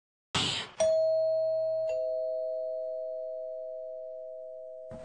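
Two-tone doorbell chime, ding-dong: a higher note and then a lower one about a second later, both ringing on and slowly dying away. A short rush of noise comes just before the first note.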